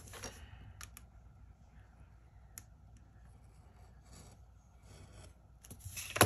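Faint scratching of a Cricut TrueControl craft knife blade slicing a thin sliver off a cardstock corner, with a few light clicks, then a sharp tap near the end.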